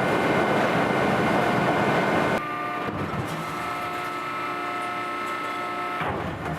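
Industrial sheet-metal forming machine running: a loud rushing machine noise cuts off suddenly about two and a half seconds in, leaving a quieter steady mechanical hum with several held tones.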